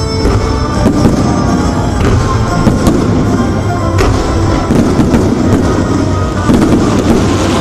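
Aerial firework shells bursting in a string of sharp bangs, roughly one a second, with music playing loudly underneath.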